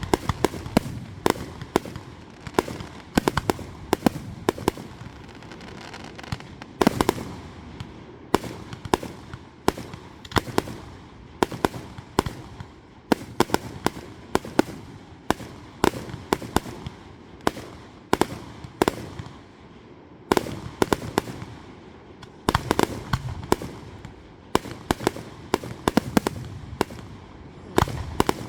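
Fireworks display: rapid, irregular bangs of aerial shells and salutes, several a second in clusters, each echoing briefly, with short lulls between barrages.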